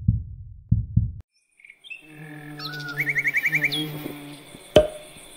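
Soft low thumps in pairs, like a heartbeat, stop about a second in. After a short silence comes an animated logo jingle: birds chirping and trilling over a low steady buzz, with one sharp click near the end.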